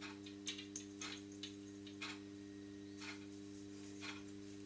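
Small, soft scattered ticks as a pinch of dried parsley is sprinkled into a plastic mixing bowl, over a steady low hum.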